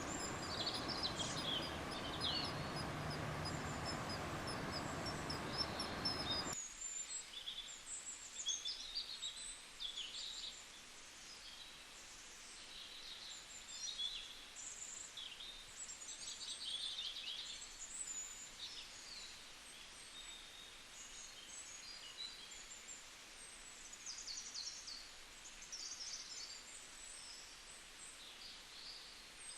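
Many birds chirping and calling in short, high-pitched bursts throughout. A loud hiss-like background noise sits under them for the first six or so seconds and cuts off suddenly, leaving the chirps over a quieter background.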